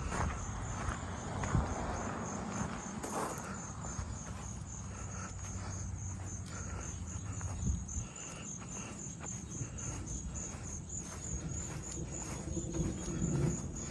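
Insects chirping in a steady, evenly pulsed high trill, with a low outdoor rumble and a few light knocks or rustles underneath.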